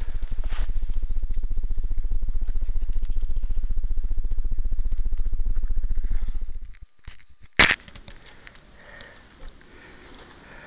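Wind buffeting the microphone of a camera carried by a moving skier: a loud, steady low rumble that cuts off about seven seconds in. A single sharp knock from the camera follows shortly after.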